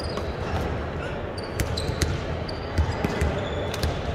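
A basketball bouncing on a court floor: irregular thumps, with faint voices in the background.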